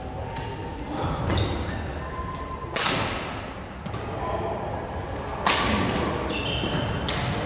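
Badminton rackets striking a shuttlecock: a string of sharp cracks, about five, the two loudest about three and five and a half seconds in.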